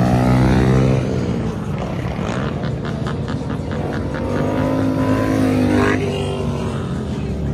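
Vehicle engines revving hard and accelerating along a street. The pitch falls over the first second, then climbs again and breaks off about six seconds in.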